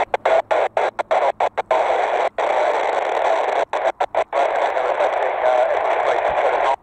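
Airband radio receiver hissing with static, the signal cutting out briefly many times, in quick succession in the first two seconds and again around four seconds in.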